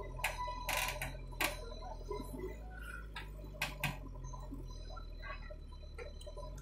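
Steady low hum of a JCB 3DX backhoe loader's diesel engine running as the backhoe bucket dumps soil into a tractor trolley. About five sharp knocks and clicks come in the first four seconds.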